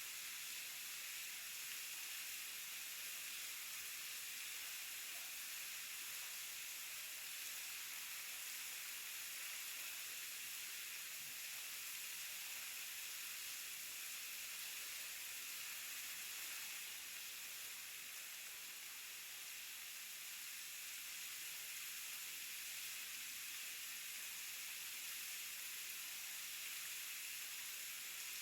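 Waterfall rushing: a steady, even hiss of falling water, mostly high-pitched, without a break.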